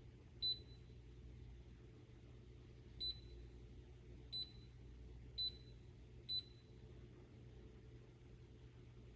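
Five short, high electronic beeps at uneven intervals, like button presses on an espresso machine's control panel, over a faint, steady low hum.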